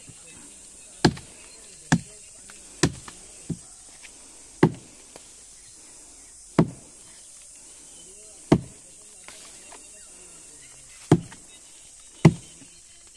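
Axe chopping into the wood of a fallen tree trunk: about nine sharp blows at uneven intervals, roughly one to two and a half seconds apart.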